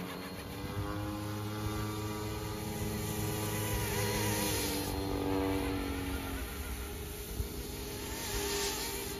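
YuXiang F06 (Eachine E135) RC helicopter in flight: its small electric motor and rotors give a steady buzzing whine that drifts up and down in pitch as it manoeuvres, the rotor head spinning fast for scale flying.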